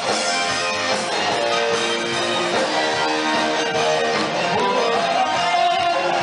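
Live band playing loud amplified music driven by strummed guitars.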